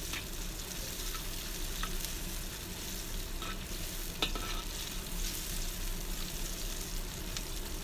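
Sliced garlic, shallots and bird's eye chillies sizzling in hot oil in a wok as a spatula stirs them, the aromatics being fried until fragrant. A few short knocks of the spatula against the wok, the sharpest about four seconds in.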